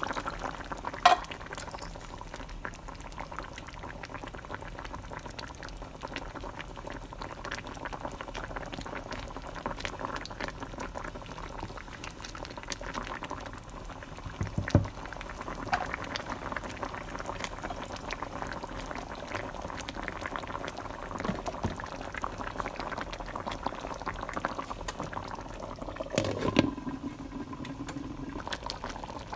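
Thick creamy sauce bubbling and popping as it simmers in a pan, stirred now and then with a spatula. A sharp knock comes about a second in, a thump about halfway, and a clunk near the end as a glass lid is set on the pan.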